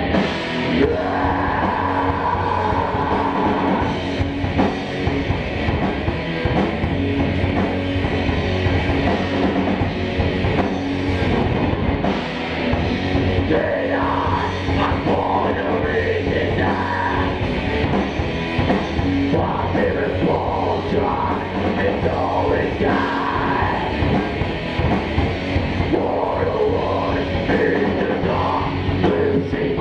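A rock band playing live and loud, in a heavy, metal-like style.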